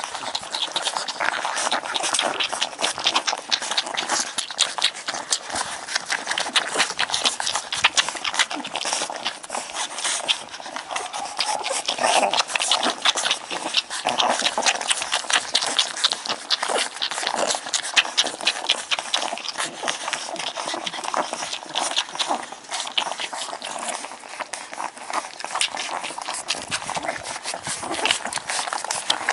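Newborn Shar-Pei puppies nursing: rapid wet suckling and smacking clicks, with occasional thin squeaks and whimpers.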